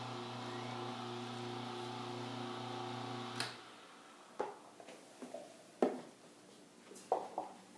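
Electric juicer motor running with a steady hum, then switched off about three and a half seconds in with a click. A few light knocks and clatters follow as the machine and its parts are handled.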